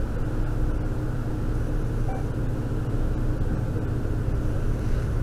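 A steady low rumble and rustle on a cheap spy-pen camera's built-in microphone, typical of the pen rubbing against clothing as the wearer moves, with a low hum underneath.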